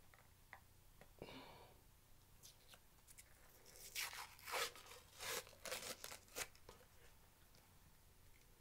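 Paper tearing and crinkling in a quick series of short rips a few seconds in, as white paper wrapping is pulled off a small plastic bottle.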